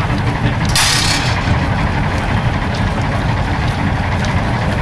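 BR Class 14 diesel-hydraulic shunting locomotive's Paxman Ventura diesel engine idling steadily, with a short hiss about a second in.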